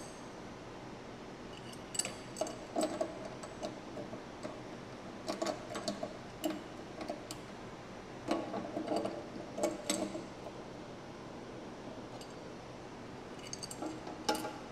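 Brass pipe fittings and an adjustable wrench clicking and clinking against each other and the positioner's metal housing while a fitting is threaded into its port, in scattered clusters of small metallic clicks.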